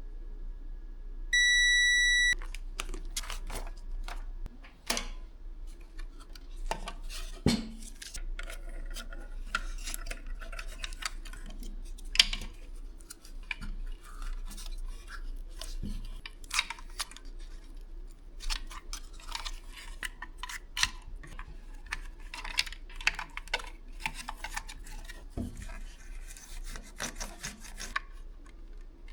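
Hand work on small hard parts: scattered clicks, taps and scraping throughout, with a steady electronic beep lasting about a second, starting about a second in.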